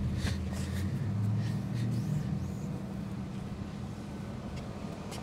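A vehicle engine running with a low, steady hum that swells slightly about a second in, under faint soft swishes of a microfiber towel wiping a car's plastic bumper.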